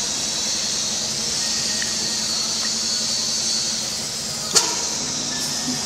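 2532L radial drilling machine running steadily, a continuous hiss with a low hum under it, and one sharp click about four and a half seconds in.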